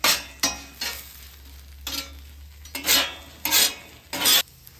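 Metal spatula scraping across a hot flat-top griddle as fries are pushed around, about seven short strokes, with faint sizzling of the frying fries between them.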